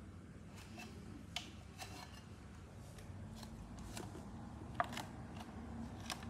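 Faint handling noise from a camera being picked up and held: scattered light clicks, taps and rubbing, with one sharper tap about five seconds in, over a quiet room hush.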